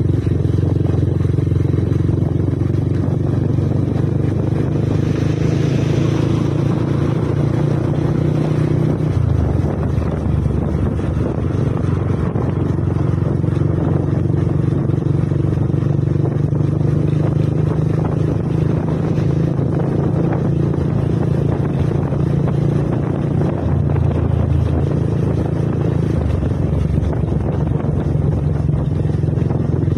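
Vehicle engine running steadily while cruising along a road, with road and wind noise; the engine note shifts pitch about a third of the way through and again at about three quarters.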